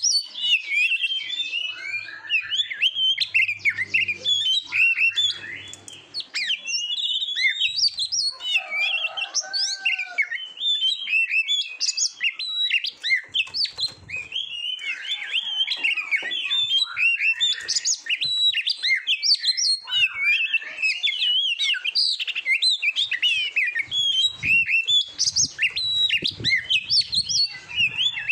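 Oriental magpie-robin singing continuously: a dense, rapid run of varied whistled notes and trills with no real pauses, including a brief lower-pitched phrase about a third of the way in.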